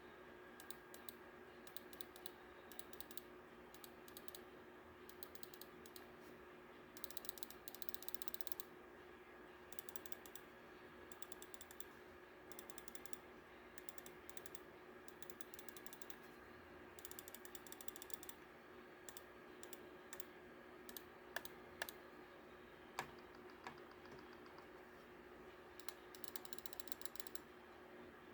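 Logitech G703 gaming mouse fitted with Huano blue shell switches, clicking. There are sharp single clicks and several runs of fast repeated clicks, with a faint steady hum underneath.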